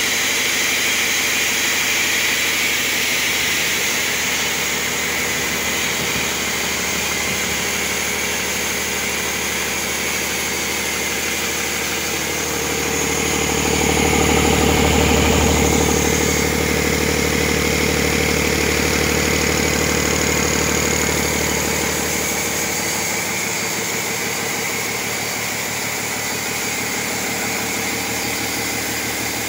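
Remanufactured 2009 Cummins ISL 8.9-litre six-cylinder diesel running at a steady idle on a test stand. It grows louder for a few seconds about halfway through, close to the open turbocharger inlet.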